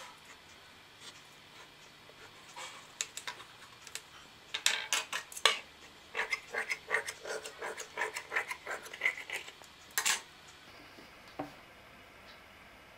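Tailor's scissors cutting a strip of black cloth along a chalk line: a run of metal snips from about four and a half seconds in until about ten seconds in, ending with a sharper snap.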